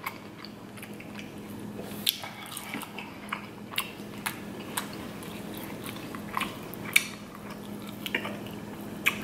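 Close-miked chewing of king crab meat, with scattered sharp mouth clicks over a faint steady hum.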